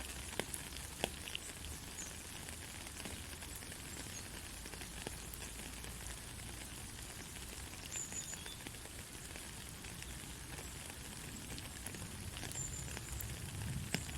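Soft, steady rain hissing, with scattered drops ticking.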